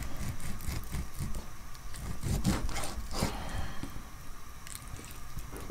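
Kitchen knife slicing raw horse meat on a wooden cutting board: irregular strokes of the blade through the meat and light taps on the board, two of them louder about halfway through.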